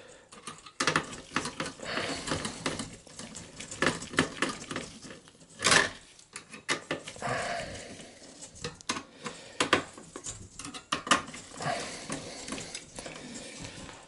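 Irregular light metallic clicks and taps of a screwdriver and gloved hands working on the CPU heatsink and its fan cable inside a small-form-factor PC case, with one sharper clack about halfway through.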